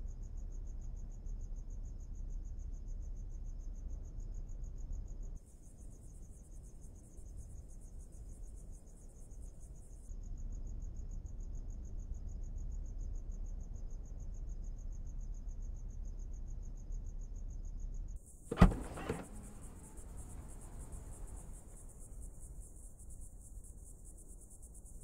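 Crickets chirping in a fast, even, high pulse over a low wind rumble, with one sharp clunk about three-quarters of the way through.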